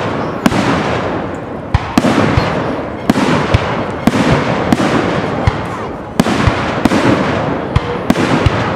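Aerial firework shells bursting in quick succession: over a dozen sharp bangs about half a second to a second apart, with a steady wash of noise between them.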